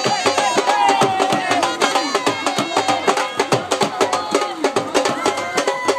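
Dhol drums beaten in a fast, steady dance rhythm, with a held, wavering melody line and crowd voices over the beat.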